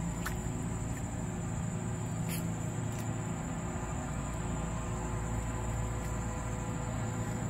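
Steady high-pitched insect buzzing over a low steady hum, with a few faint clicks in the first three seconds.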